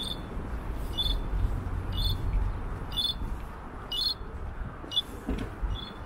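Pedestrian crossing's audible signal beeping, a short high tone about once a second, which marks the green walk phase. A low street rumble runs underneath.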